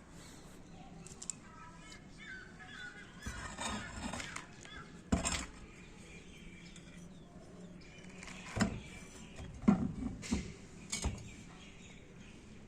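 A few scattered sharp knocks and clatter, the loudest close together in the second half, with faint bird chirps in the background early on.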